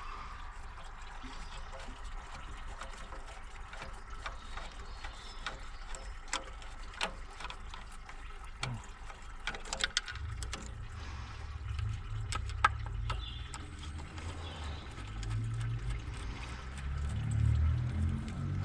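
Scattered light clicks and clinks of hand tools and parts being handled while taking apart a car's intercooler plumbing. A low hum comes in about halfway through and grows toward the end.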